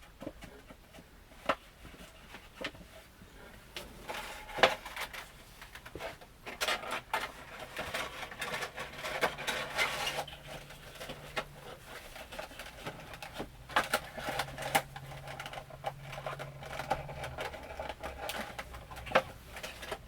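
Hands handling and pressing a Funko Pop cardboard box with a plastic window: scattered clicks and taps with stretches of crinkling, busiest in the middle and again near the end. A faint low hum sits under the middle part.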